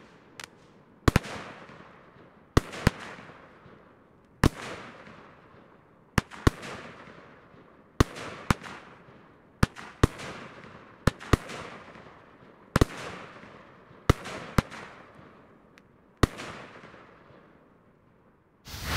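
Firework battery (multi-shot cake) firing 20–30 mm shells that burst aerially with loud bursting-charge bangs, about one a second and sometimes two in quick succession. Each bang is followed by a fizzing, glittering tail that fades over about a second. The firing stops a couple of seconds before the end, and a short loud burst of noise closes the window.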